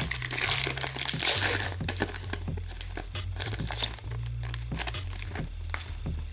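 Glossy trading cards and their foil pack wrapper being handled. There is crinkling for about the first two seconds, then a string of light clicks and slides as the cards are flipped one by one.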